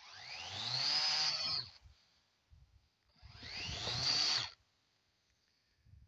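Makita DUX60 36 V cordless multi-tool driving its KR400MP cultivator attachment, run in two short bursts of about a second and a half each. In each burst the motor whine rises in pitch as it spins up and then stops suddenly, as the tines break up a lump of soil.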